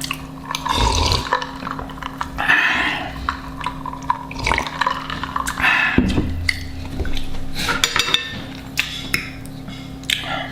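Close-miked eating: chewing and wet mouth sounds with many sharp clicks, coming in short irregular bursts.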